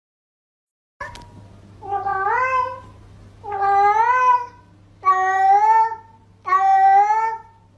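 A cat meowing: four long meows about a second and a half apart, each rising and then holding level, over a faint low hum.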